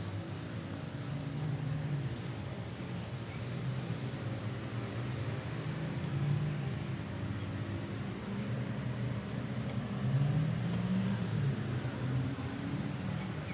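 Steady low mechanical drone, its pitch wavering slightly up and down.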